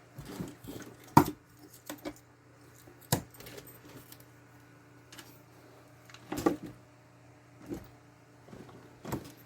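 Small metal tools and parts clinking and tapping as they are handled, in a handful of sharp separate clicks over a faint steady hum.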